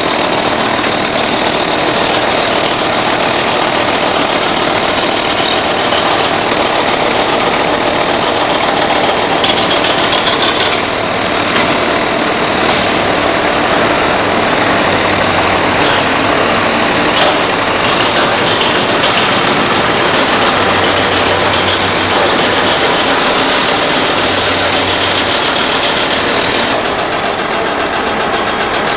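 Diesel construction machinery running steadily on a building site: a dense, constant engine din with no pauses. Near the end the sound turns duller.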